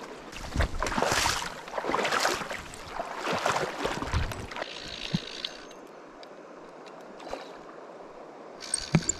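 Shallow river water splashing in uneven surges as a hooked trout is played toward a landing net. Near the end the fly reel is wound in.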